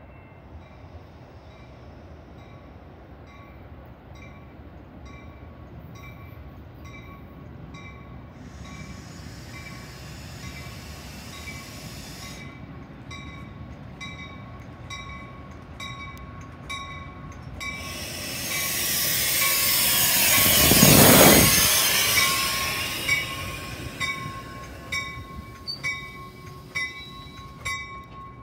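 Grade-crossing warning bells dinging in a steady rhythm as a Metra push-pull commuter train, bi-level stainless cab car leading, approaches. The train rushes past close by with a loud peak about three quarters of the way through, then the gallery cars roll by with wheels clicking over the rail joints.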